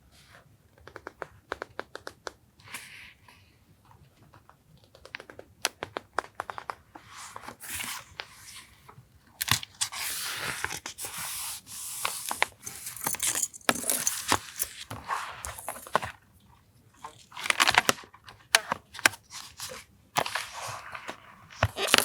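Paper being handled by hand for a journal collage: scattered light taps and crinkles, then longer stretches of paper tearing and rustling through the second half.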